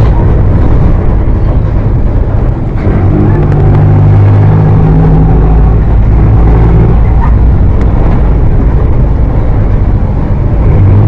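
Exhaust of a Mercedes-Benz OF 1418 bus's six-cylinder diesel engine, running loud with a heavy low rumble. Near three seconds in it dips briefly, then a clearer, steady engine note comes up and holds for about four seconds before easing back into the rumble.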